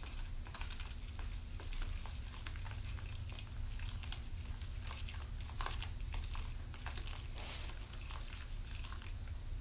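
White glue thickened with iron filings being stirred with a plastic spoon in a plastic bowl: irregular wet squelching and scraping clicks as the spoon works the mix against the bowl, over a steady low hum.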